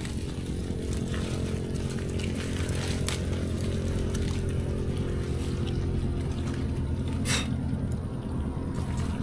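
A small engine running steadily with a low hum, and a few sharp knocks over it, the loudest about seven seconds in.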